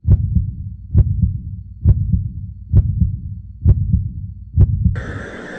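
Heartbeat, six slow double thumps, each a strong beat followed by a softer one, a little under a second apart.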